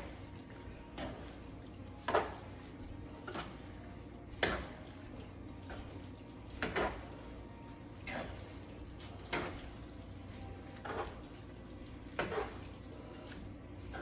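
Spaghetti in sauce being tossed with silicone-tipped tongs in a frying pan: a short scrape-and-slap of noodles and tongs against the pan about once every second, over a steady low hum.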